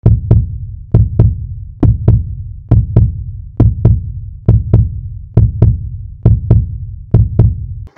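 Heartbeat sound effect: nine evenly spaced lub-dub pairs of deep thumps, about one beat every 0.9 seconds, stopping suddenly near the end.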